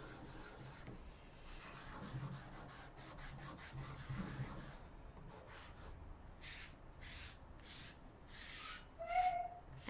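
Tissue-covered fingertip rubbing black pencil shavings into drawing paper in small circles: a faint, repeated swishing. The strokes come about two a second in the second half.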